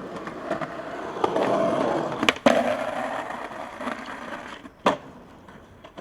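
Skateboard wheels rolling on pavement, growing louder, with two sharp board clacks in quick succession about two and a half seconds in and one more clack near the end.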